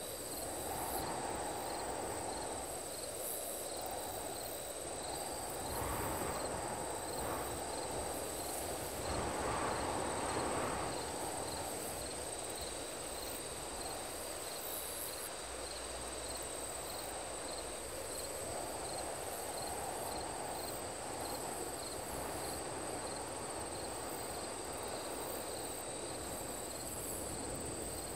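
Designed night-time sci-fi ambience: a steady, high cricket-like chirring with faint regular pips, over a hollow drone that swells and fades every few seconds, loudest about ten seconds in.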